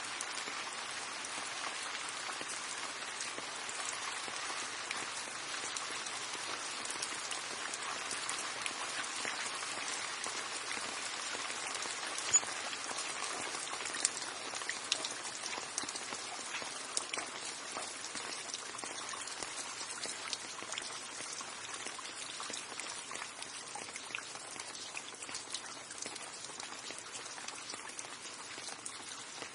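Steady rain falling, a continuous patter with many individual drops ticking on a hard surface; a few louder drop hits stand out near the middle.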